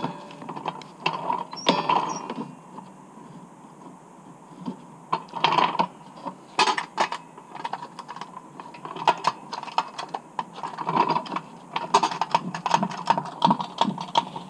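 Irregular clicks and rattles of metal and plastic as a steel tow-bar crossbar is worked past a car's rear bumper while resting on a trolley jack. The clicks come thicker and more regular near the end.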